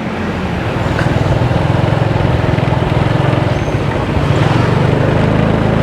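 Motorbike engine running steadily while under way, with wind rushing over the microphone.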